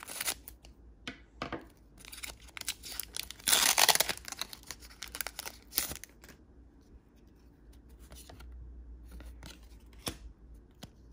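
Foil Pokémon booster pack torn open by hand: crinkling and crackling of the wrapper, with a loud rip about three and a half seconds in, then the cards being handled with light clicks.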